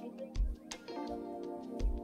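Instrumental background music, with a low beat landing twice, about a second and a half apart.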